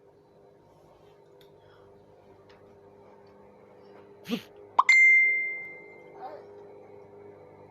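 A short pop, then a quick rising bloop and a bright, bell-like ding that rings out and fades over about a second, a little past halfway through.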